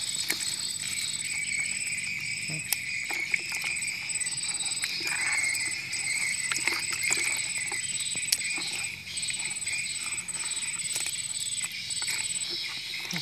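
Insects chirring steadily, a high line pulsing on and off throughout, with scattered small splashes and sloshes of water as a hand moves about in a plastic tub holding freshly caught climbing perch.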